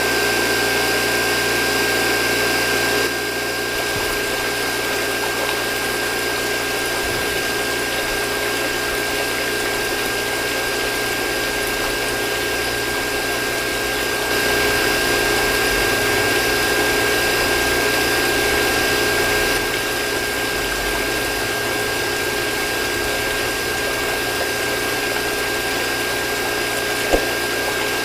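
Small DC motor and mini water pump of a model borewell drilling rig running steadily: a constant high whine over an even rushing hiss, with slight shifts in level now and then.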